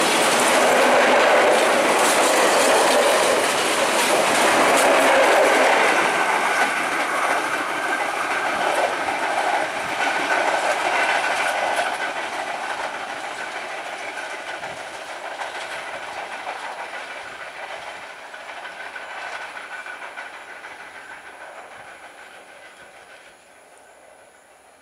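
Passenger train coaches rattling past at speed, wheels clicking over the rail joints. The sound fades steadily as the train draws away, nearly gone by the end.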